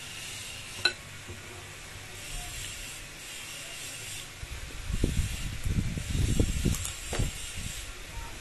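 Cooked crab shell being picked and broken apart by hand, with crackles over a steady hiss. There is a sharp click about a second in, and a run of low knocks and rumbles in the second half.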